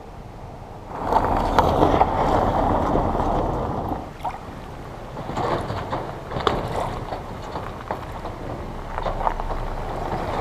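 Kayak moving on the water: a rushing wash of water with occasional light knocks, starting about a second in.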